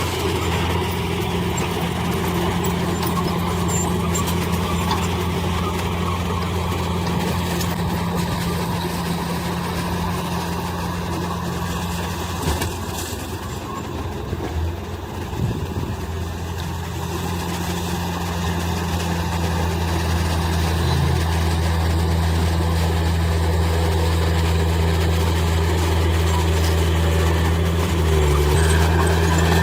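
Heavy diesel engine of earthmoving machinery running steadily with a low drone. It eases off slightly around the middle and builds up again in the second half.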